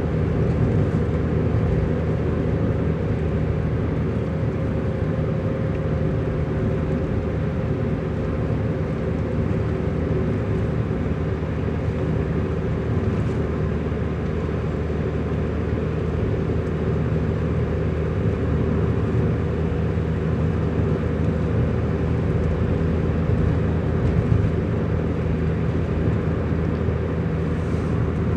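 Motor vehicle driving on the road: a steady engine drone over road noise, holding the same pitch throughout.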